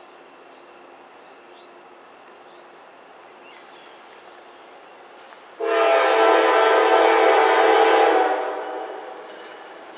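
Multi-chime air horn of an approaching GE diesel freight locomotive sounding one long blast of about two and a half seconds, starting sharply past the halfway point and trailing off. Before it, only a faint steady hum.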